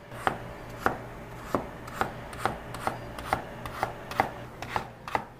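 Chinese cleaver slicing a peeled potato on a plastic cutting board: sharp knocks of the blade on the board in a steady rhythm of about two to three cuts a second.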